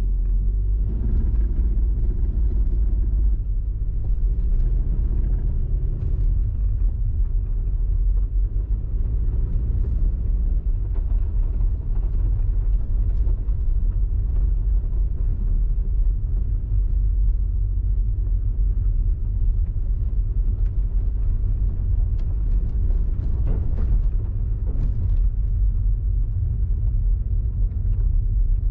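Car driving on city streets: a steady low road and engine rumble, with a faint hum that changes pitch a few times in the first ten seconds and a few light ticks about twenty-four seconds in.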